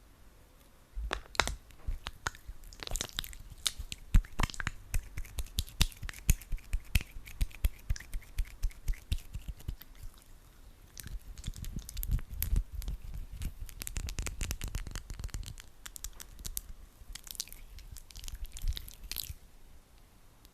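Hands rubbing together coated in aloe vera gel: sticky, wet squelching with many quick clicks, growing into a denser, continuous rub about halfway through, and stopping shortly before the end.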